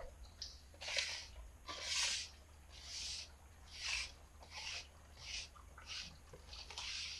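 Internal parts being slid and pulled out of a 5R110W automatic transmission case during teardown: a run of short scraping swishes, about one a second.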